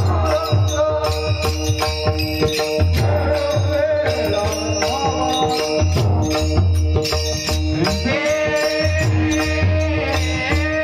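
Marathi devotional bhajan music: steady held notes under regular drum beats and frequent sharp metallic percussion strikes, with a sung melodic line coming in at times.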